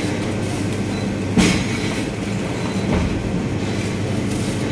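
Automatic oil pouch filling and sealing machine running with a steady mechanical hum. A sharp clack comes about a second and a half in, and a weaker one about three seconds in.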